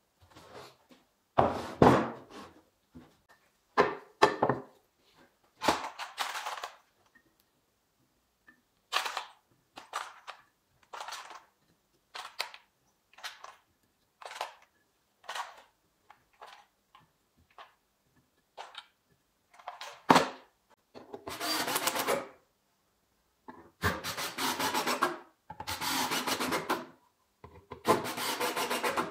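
Screws being handled: clicks, rattles and knocks as they are picked from a plastic screw box and set into pine boards, coming as many short separate sounds and then a few longer rattling stretches near the end.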